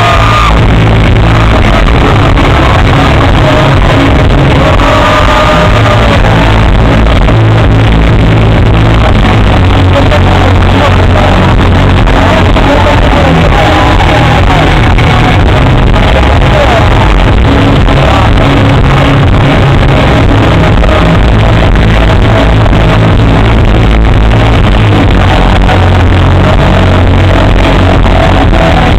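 Loud music played over a large outdoor sound system, holding a steady high level, with the bangs and crackle of a fireworks display mixed in.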